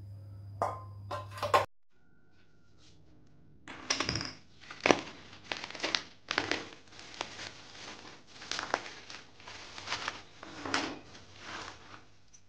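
Black plastic bag packaging crinkling and rustling in irregular bursts as it is unwrapped by hand, for about eight seconds. Before that, near the start, three quick clanks of frying pans being set into a cabinet rack.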